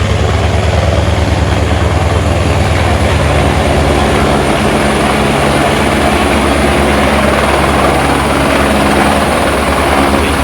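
Helicopter running loud and steady, its rotor beating in a fast, even chop over a low engine drone.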